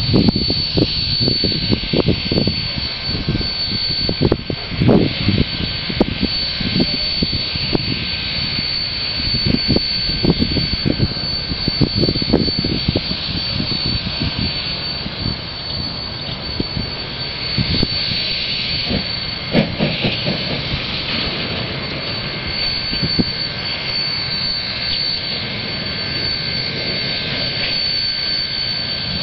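Steam locomotive Jb 1236 working a freight train, heard from a distance: its exhaust beats over a steady roar. The beats are most distinct in the first half and blend into a more even roar toward the end.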